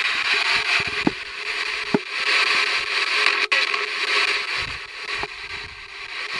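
Steady hiss of static from a spirit box, a radio sweeping through stations, with a few brief blips breaking through the noise.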